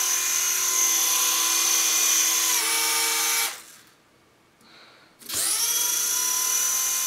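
Flying spinner toy's small high-speed fan whining steadily, then dying away about three and a half seconds in. About a second and a half later it starts again, the whine rising in pitch as it spins up and then holding steady.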